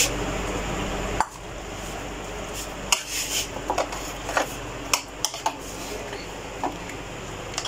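A metal utensil stirring chopped onion into beaten egg in a ceramic bowl, with scattered light clinks and scrapes against the bowl.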